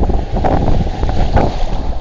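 Wind buffeting the microphone over sea surf washing and breaking around the wading angler, a steady noisy rumble that swells in gusts about half a second in and again near one and a half seconds.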